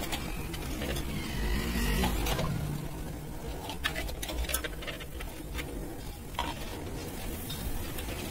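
Brass pan being tin-coated over a gas burner: fizzing and rubbing from inside the hot pan over a steady low burner rumble, with scattered sharp metal clicks as the pan is handled.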